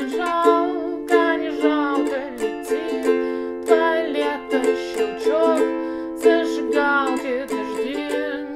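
Ukulele strummed in a down-down-up-up-down-down-down-up pattern through Dm, F, Am and G chords, with a woman singing the melody along with it.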